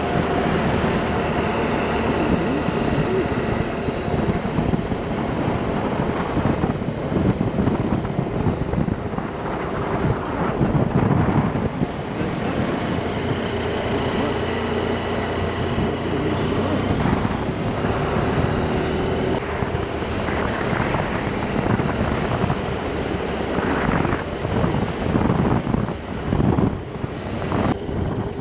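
BMW GS Adventure motorcycle engine running steadily while riding along, with wind noise on the microphone.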